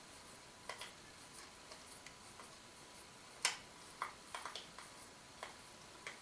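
Scattered light clicks and taps of hard plastic as the battery holder of a toy RC transmitter is worked loose, the sharpest click about three and a half seconds in.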